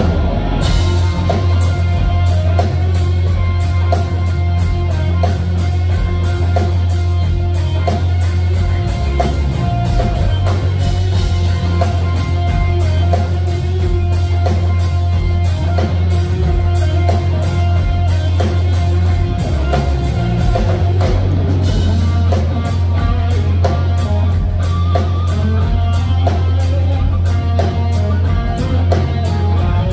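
Live instrumental rock: an electric guitar lead played through Marshall amplifiers over a steady drum kit beat with a heavy low end.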